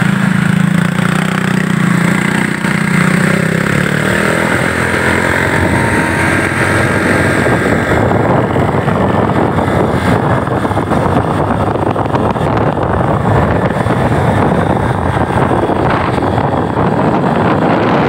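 Motorcycle engine running at a steady pitch for the first few seconds, then fading under a loud, even rush of wind across the microphone as the bike rides along.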